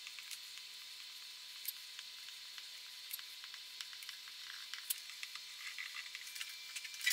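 Hot wire tip of an electric pyrography pen scorching wood: a soft sizzle with scattered small crackles and ticks, a louder cluster of crackles near the end.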